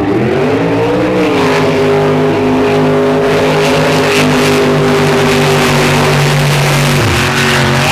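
Modified race truck engine revved hard: its pitch climbs in the first second, is held steady at high revs, then falls away near the end.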